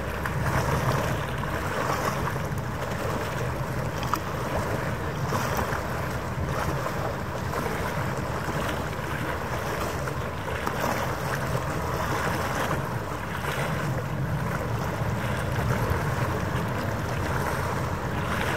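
Steady wind buffeting the microphone over the rush of harbour water, with a faint low steady hum underneath.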